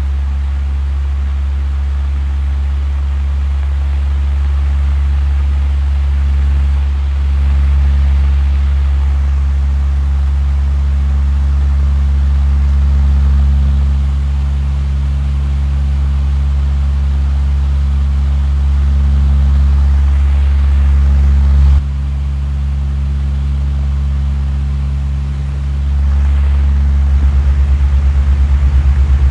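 Heavy engine of construction machinery running steadily with a low drone. It drops off suddenly about twenty-two seconds in, then picks up again with a fast, even pulsing near the end.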